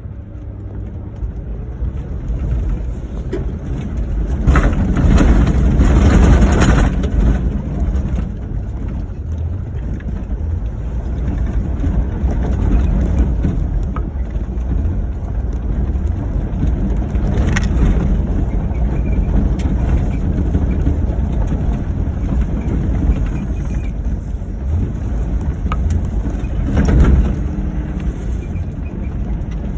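Ford Crown Victoria driven over rough off-road ground: a steady engine and road rumble with tyre and suspension noise, surging louder for a few seconds about five seconds in and again briefly near the end.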